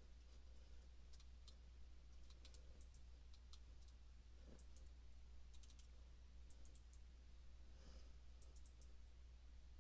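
Near silence with a steady low hum and faint computer clicking, scattered in a few quick clusters.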